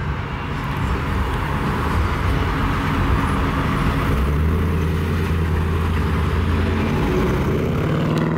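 Engine and exhaust of a 1940s coupe pulling out and driving away, a steady low engine note that grows stronger and climbs slightly in pitch from about halfway through as it accelerates.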